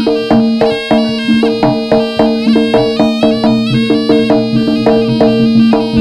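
Jaranan gamelan music: struck metal percussion ringing in an even beat of about three strokes a second over a steady held tone.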